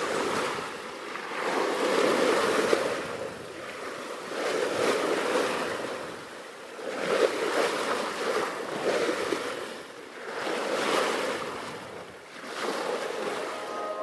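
Sea rushing and splashing along the hull of a sailing yacht moving fast under sail, with wind. The rush swells and eases every two to three seconds as the boat runs through the waves.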